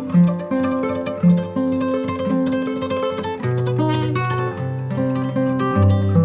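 Background music led by plucked guitar, with notes changing about every half second.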